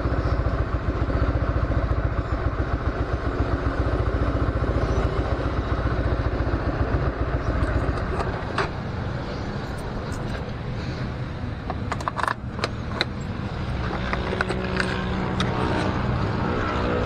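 A Honda motorcycle's engine idling with an even low pulse, then switched off about eight seconds in. After that come clicks and clatter from the ignition key and the seat being unlatched and lifted.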